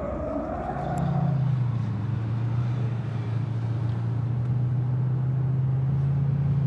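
After about a second of outdoor noise, the steady low drone of a car's engine and road noise heard from inside the cabin of an Audi on the move.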